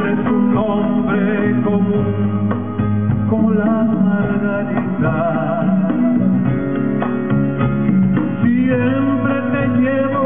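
A man singing live into a microphone over a band with electric bass guitar and keyboards.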